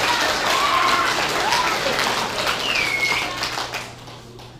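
Audience applauding, with a few cheers, dying away near the end.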